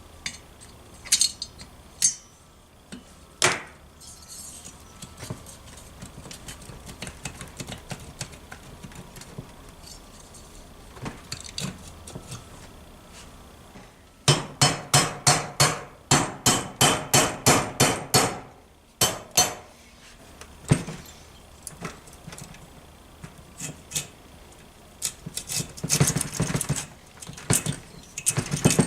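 Metal-on-metal hammer blows during moped engine disassembly: a few scattered knocks and clicks, then a fast run of sharp, ringing strikes at about four or five a second for roughly four seconds in the middle, and another cluster of strikes near the end.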